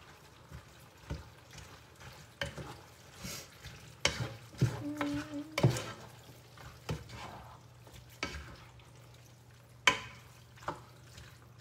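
A spoon stirring a wet, chunky mixture of cabbage, smoked sausage and tomatoes in a skillet on a hot burner, scraping and knocking against the pan at irregular intervals over a faint sizzle.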